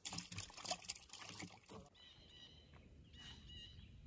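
Close scuffing footsteps and rustling on dry ground for about the first two seconds, then faint songbirds chirping in short repeated phrases.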